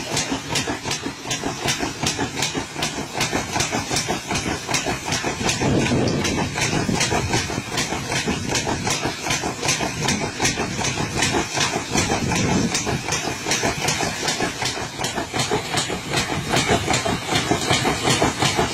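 Patoz threshing machine running: a rapid, even mechanical clatter over a steady drone of machinery.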